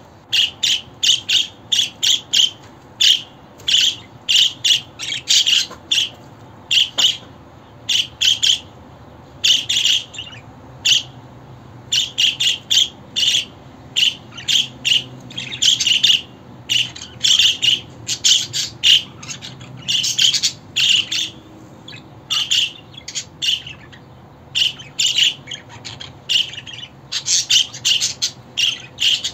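Budgerigar chirping: a fast run of short, high chirps and squawks coming in quick clusters, with a few brief pauses between them.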